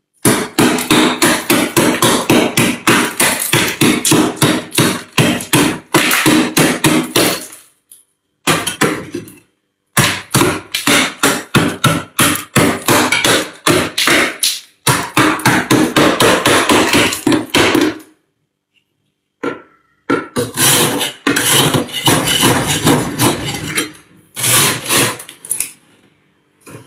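Thick freezer frost being chipped and scraped with a flat metal blade: rapid crunching strokes, several a second, in long runs broken by short pauses and a roughly two-second break about two-thirds of the way through.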